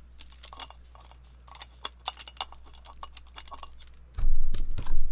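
Camera clamp and thread adapters being handled: a run of small, irregular clicks and ticks, then about four seconds in a loud, low thudding rumble of handling noise as the gear is knocked or gripped, over a steady low hum.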